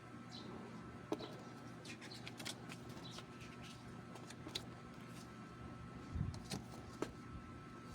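Light handling noises of a card deck and its packaging: scattered rustles and small clicks, with a soft thump a little after six seconds, over a steady low hum.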